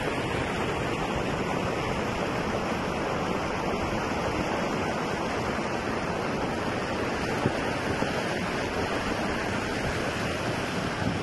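Muddy floodwater rushing in a steady torrent across a road.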